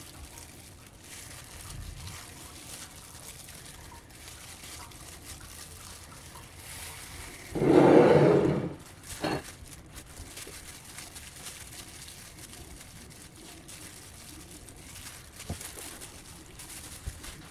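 Faint crinkling and rustling of a plastic bag worn over a hand while it peels the charred skin off a fire-roasted eggplant. About eight seconds in comes a loud, muffled, one-second rub or knock, with a shorter one just after, as the camera is moved.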